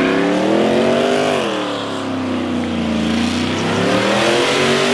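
Car engine revving hard, its pitch climbing and falling in slow sweeps: it drops about a second and a half in and builds again toward the end.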